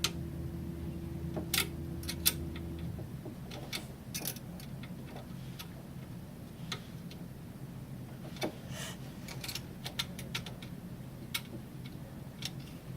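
Irregular small metal clicks and taps of a hand tool working the bolts of a door pull-up bar as they are tightened. A low steady hum underneath cuts off about three seconds in.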